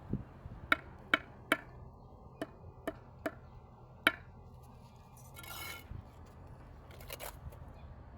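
A mason's trowel taps sharply on a brick with a short metallic ring, seven times in the first four seconds. Then come two brief scrapes, typical of a trowel working mortar.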